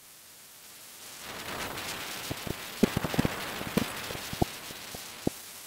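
Passenger train in motion: a rushing noise swells about a second in, with a run of irregular sharp knocks through the middle.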